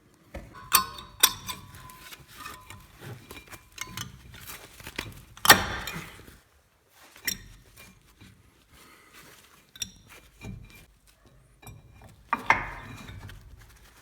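Metallic clinks, knocks and scrapes of new front brake pads being fitted into the brake caliper, some clinks ringing briefly; the loudest knock comes about halfway through, another near the end.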